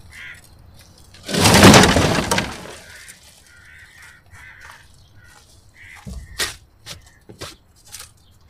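Dry broken tree branches thrown onto a loaded utility-vehicle cargo bed, landing with a crash and rustle of twigs about a second in. Several sharp snaps and cracks follow near the end as branches shift on the pile.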